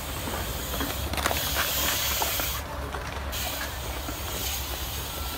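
BMX bike riding a concrete skatepark bowl: a steady hiss of tyres rolling over concrete, with scattered light clicks from the bike.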